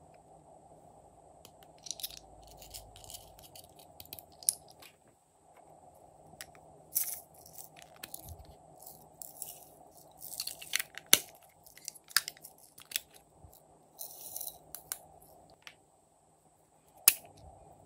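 Small plastic containers being clicked open and shut, and glitter and sequins shaken out of them. A scatter of clicks, rattles and short rustles, with a sharp snap about 11 seconds in and the loudest snap near the end.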